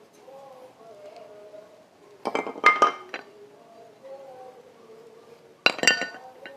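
Metal pieces clinking together in two short clusters of strikes, a little over two seconds in and again near the end, each ringing briefly.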